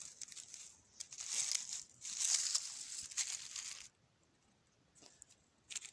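Crackly rustling and scraping of soil and debris being handled, in bursts from about one second in to about four seconds in, then a short click near the end.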